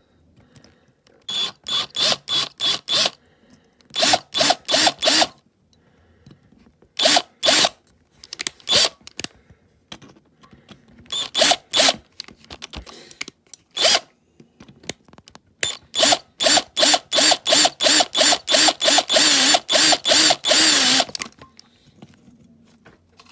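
Power drill run in quick stabs of the trigger, drilling out the rivets that hold the light bar on a die-cast model car. It comes in several groups of short pulses, then a longer run of rapid pulses near the end.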